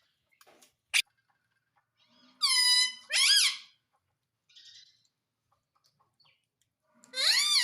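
Pet parrot calling: two loud, harsh calls back to back a couple of seconds in, the second rising and then falling in pitch, and another rising-then-falling call near the end, with a faint click about a second in.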